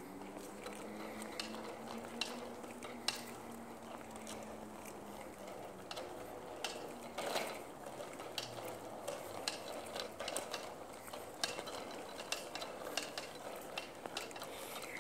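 A child's bicycle with training wheels rolling slowly over cracked concrete: a steady rolling rattle with frequent, irregular clicks and knocks.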